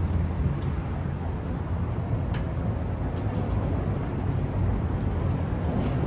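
Steady low rumble of city traffic, with a few faint ticks.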